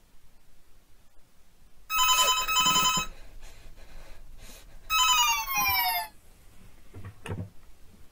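Cordless house phone ringing with an electronic warbling ring: two rings about a second long each, and the second ring slides down in pitch.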